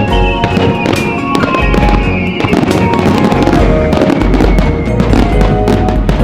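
Fireworks banging and crackling in rapid succession over loud accompanying music.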